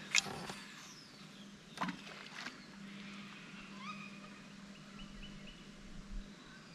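Fishing rod cast off a baitcasting reel: a sharp swish, then the spool whirring as line pays out, falling in pitch over about a second, and a couple of knocks about two seconds in. Birds call in the background over a steady low hum.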